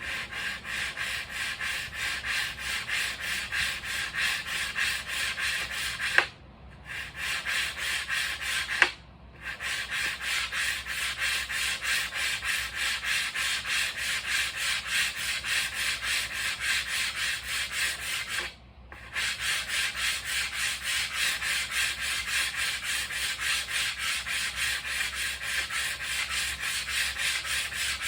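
Sandpaper rubbed back and forth by hand over a spoiler in an even rhythm of about three strokes a second. The strokes stop briefly three times, with a sharp tap just before each of the first two stops.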